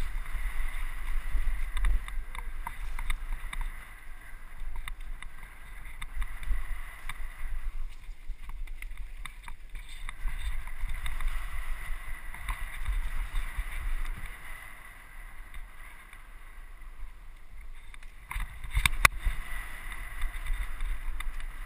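Mountain bike descending a rough, stony forest trail: wind buffeting the action camera's microphone, with tyres and bike rattling over the rocky surface and a cluster of sharper knocks near the end.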